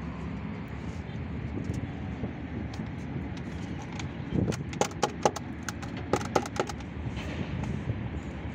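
A plastic air-filter cover being handled and knocked: a quick run of sharp clicks and knocks about halfway through, over a steady low rumble.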